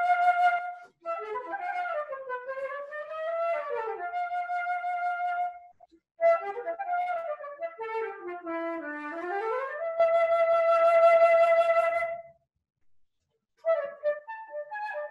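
Solo concert flute playing quick, agile melodic phrases, with a falling run about nine seconds in. A long, loud held note follows, then a brief pause before the playing resumes near the end.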